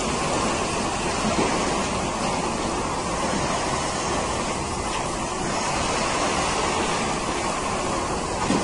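Steady, even noise of milking-parlour machinery running, with no clear beat or pitch.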